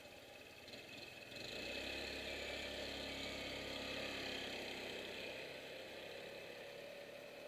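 A 150cc Ruckus-style scooter's engine pulling away: quiet at first, it grows louder about a second and a half in as the scooter moves off, holds steady, then fades as the scooter rides off.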